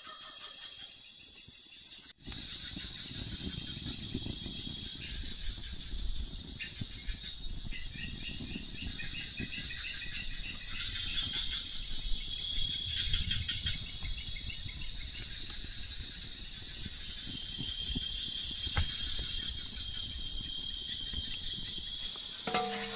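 Crickets and other night insects in a steady, high-pitched chorus, over the low crackle of a wood fire, with a few soft knocks.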